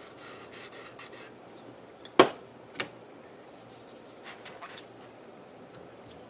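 Faint rubbing strokes of a fine Gatco sharpening hone, oiled, on its guide rod against a machete edge. A sharp click sounds about two seconds in, with a softer one just after.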